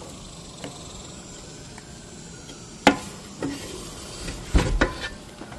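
Handling noise of board parts: a sharp click about three seconds in, then a few knocks and a dull thump near the end.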